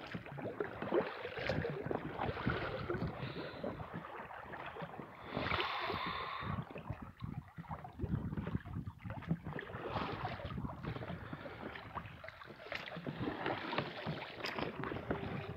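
Oars dipping and splashing as a small rowboat is rowed across calm water, with water lapping against the hull. A short higher-pitched sound comes through about five and a half seconds in.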